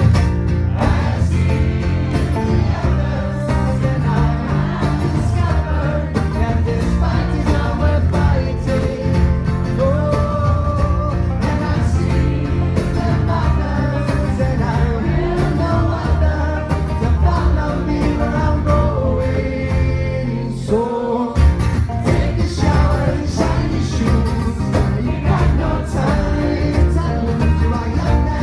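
A live acoustic folk-rock band playing with singing: strummed acoustic guitars, banjo, upright bass and fiddle. There is a brief dip in the music about three-quarters of the way through.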